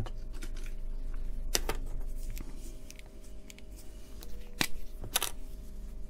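Small handling noises on a wooden workbench as a capacitor and a pen are picked up and handled, with three sharp clicks and taps over a steady low hum.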